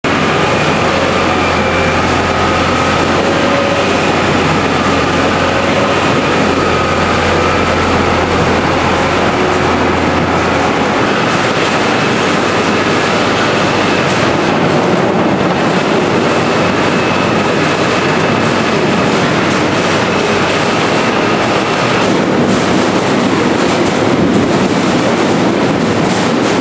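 Potato-handling farm machinery running: a steady loud mechanical rattle and rumble, with a low engine hum that drops away about eleven seconds in.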